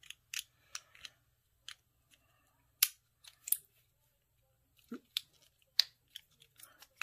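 Scattered small metallic clicks and ticks of a handle-nut wrench on the handle nut of a Daiwa Tatula 100 baitcasting reel as the reverse-threaded nut is turned loose. The loudest clicks come about three seconds in and again near six seconds.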